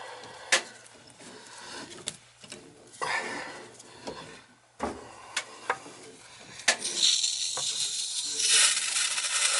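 Metal hand tool clicking and knocking against the brass fittings of a hydronic zone valve. From about seven seconds in, a steady hiss sets in as the loosened fitting lets water from the drained-down heating loop rush out into a bucket.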